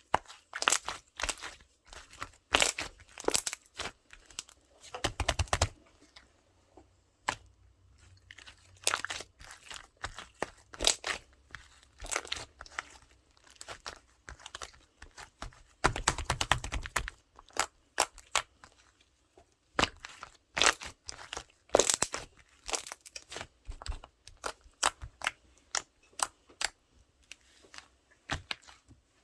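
Slime being squeezed and pressed by hand, making irregular crackling clicks and pops, with two longer crackling stretches about five and sixteen seconds in.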